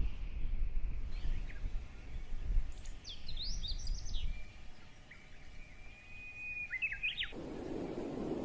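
A bird singing a series of quick whistled notes that sweep up and down, then one longer held whistle, over a low wind rumble on the microphone. A little before the end the sound changes suddenly to a steady rush of wind.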